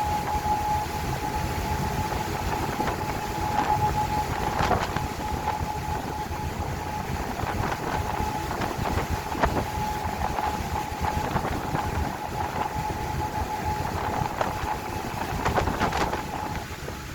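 A boat under way on a choppy sea: a steady engine rumble with a thin, steady whine above it, and a few sharp knocks.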